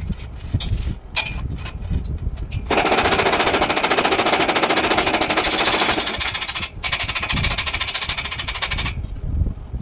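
Stick (arc) welding arc crackling, a dense, fast sizzle that starts a little way in, breaks off for an instant about two-thirds through and stops near the end. Before it, a few scattered clicks and knocks.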